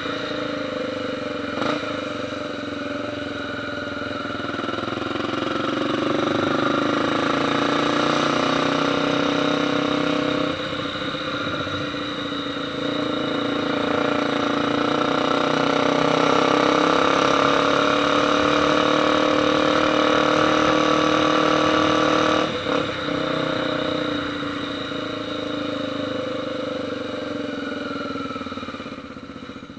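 Honda XR Tornado motorcycle engine running with the revs held for long stretches, slowly rising and falling. It is loudest through the middle, drops back suddenly about two-thirds of the way in, and eases off near the end.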